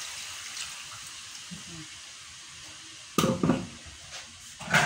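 Water poured from an electric kettle into a hot pot of sautéed chicken, a hiss that fades away over the first couple of seconds. About three seconds in there is a loud clunk, and another near the end, as kitchenware is handled.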